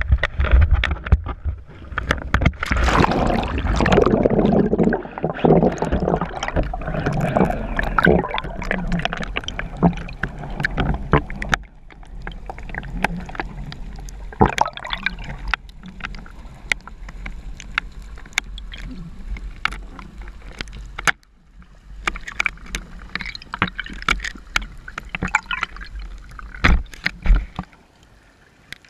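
Water sloshing and gurgling, with many sharp knocks and clicks; louder for the first ten seconds or so, then quieter.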